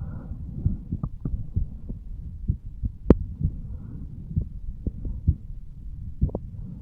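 Human heartbeat recorded over the aortic valve area of the chest: repeated low thuds over a steady low hum, with one sharp click about three seconds in.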